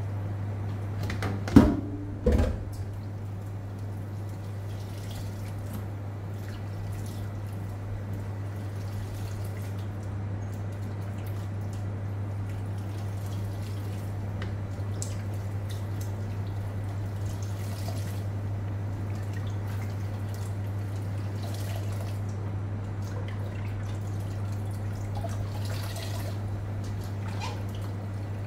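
Water dripping and splashing in a stainless-steel kitchen sink as diced pomelo pith is rinsed and handled by hand, with two loud knocks about one and a half and two and a half seconds in. A steady low hum lies under it.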